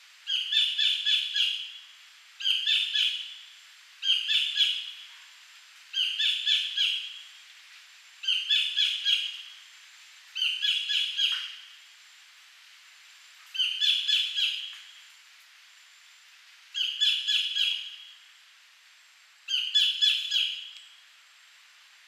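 Collared kingfisher calling: nine loud bouts, each a rapid series of about four to six repeated notes lasting a second or so, coming about every two seconds, with longer pauses between bouts in the second half.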